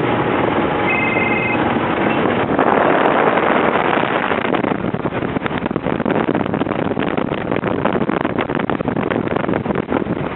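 Boat under way: rushing wind and water noise with wind buffeting the microphone, turning choppy and gusty about halfway through.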